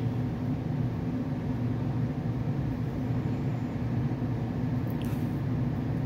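2006 American Standard Freedom 90 gas furnace running with its burners lit and indoor blower motor on: a steady low hum.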